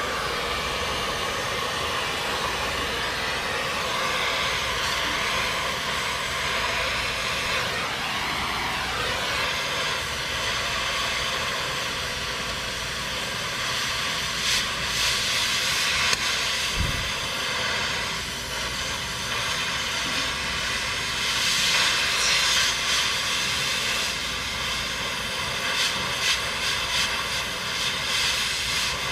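Gas cutting torch hissing steadily as it cuts through the steel mounts of a worn-out dump-truck liftgate, with louder crackling stretches of sparks and spatter a few times.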